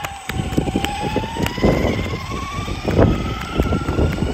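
ARRMA Senton 3S short-course RC car's brushless motor and drivetrain whining. The whine dips slightly at first, then rises steadily in pitch as the car picks up speed. Scattered sharp clicks and knocks come over a low rumble as the car runs over the ground.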